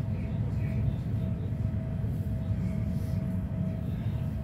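Interior noise of a moving electric commuter train: a steady low rumble of wheels on rails, with a faint steady whine above it.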